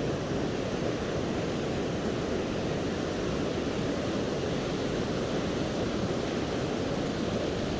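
A river in flood running fast: a steady, even noise of heavy water flow that does not change.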